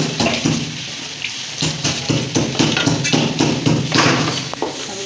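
Chicken frying and sizzling in an aluminium karahi while a wooden spoon stirs it, scraping against the metal pan in repeated strokes, two or three a second.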